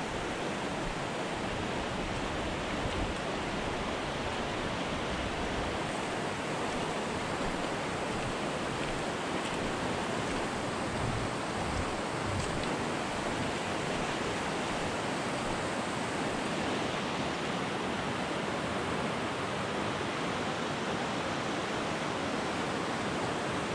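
Fast-flowing river rushing over rocks and gravel, a steady, even wash of water noise, the river running high with snowmelt.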